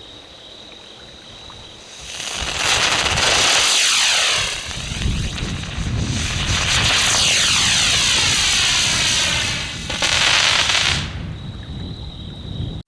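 Hard-plastic dragonfly helicopter firework ignited and spinning up, its spinning motor giving a loud rushing hiss that swells and sweeps in pitch as it flies. The hiss starts about two seconds in, falls away briefly a couple of seconds later, comes back, and cuts out about eleven seconds in.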